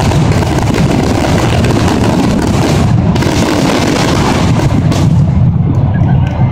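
Fireworks finale barrage: aerial shells bursting in a dense, continuous run of booms over a deep rumble, with crackling on top. The crackle thins out about five seconds in, and the booming stops near the end.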